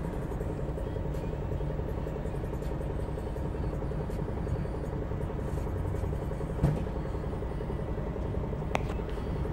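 Steady engine and road rumble of vehicles on the move, heard from inside a car's cabin while it follows a truck. A single short knock comes about two-thirds of the way through.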